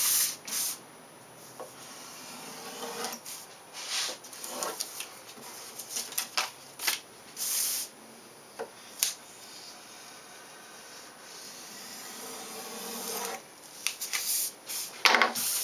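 Craft knife scoring and slicing through contact paper and its backing sheet, with the paper rustling and sliding on the bench in short irregular bursts.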